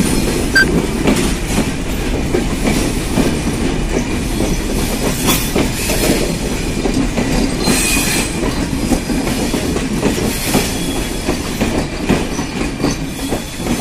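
Passenger coaches of the Panchagarh Express rolling past close by, a steady rumble of steel wheels on rail with irregular clacks as the wheels cross rail joints and points.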